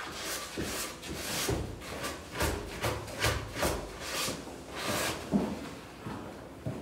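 Rhythmic rubbing strokes by hand on wooden closet trim, about two a second, which die away about five seconds in.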